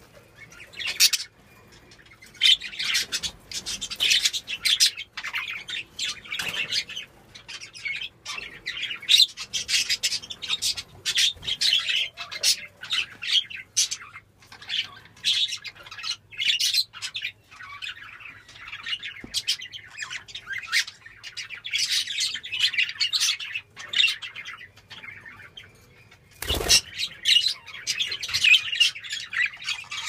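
Budgerigars chattering, a dense, rapid run of high chirps and warbles that goes on with only brief gaps. A single sharp knock sounds about three-quarters of the way through.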